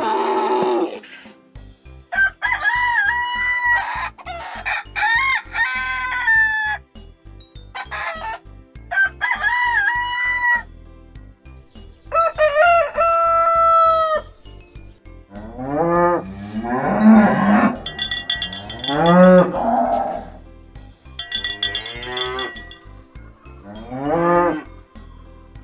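A rooster crowing, about five crows in the first half, then a cow mooing, several long moos that rise and fall in pitch. A faint steady low pulse runs underneath.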